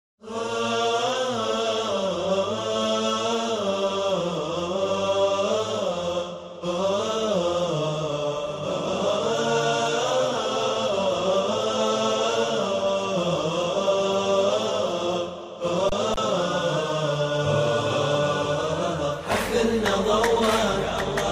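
Chanted vocal music: a voice sings a slow, wavering melody over sustained notes, pausing briefly about six and fifteen seconds in. Near the end the music turns fuller and busier, with quick sharp accents.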